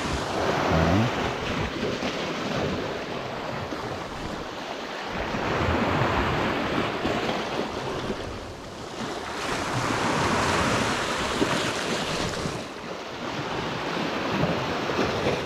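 Sea surf washing against the rocky shore, swelling louder and easing off several times, with wind on the microphone.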